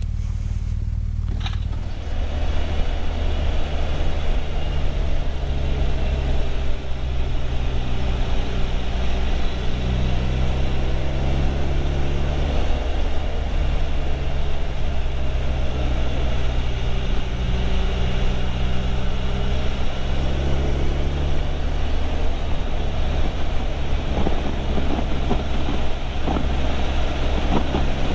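Motorcycle engine running at a steady road speed with wind noise rushing over it, its pitch rising and falling a little; it gets louder about two seconds in.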